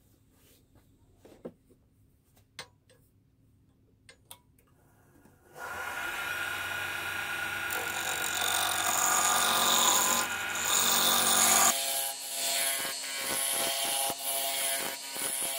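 A wood lathe turning a lignum vitae spoon-handle blank while a gouge cuts it, making a loud, steady scraping hiss that starts suddenly about five seconds in. Before that there are only a few faint clicks, and near the end the low motor hum drops away, leaving a lighter, uneven scraping.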